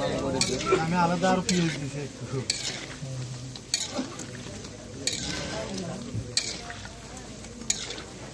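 Onion fritters deep-frying in hot oil in a steel wok, sizzling, while a metal spatula stirs and turns them, with sharp scrapes and knocks against the wok about once a second, busiest in the first couple of seconds.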